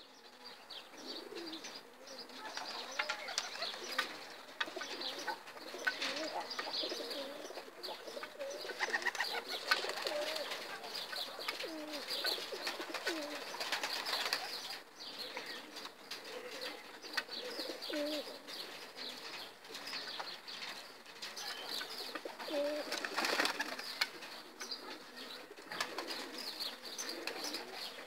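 A flock of domestic Pakistani pigeons cooing continually, with wings flapping now and then.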